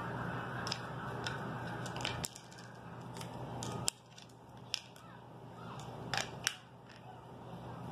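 Light clicks and knocks of a toddler handling a wooden pound-a-peg bench toy, its wooden pegs and a small metal tool, about seven scattered taps. A steady background hiss runs underneath and drops away about two seconds in.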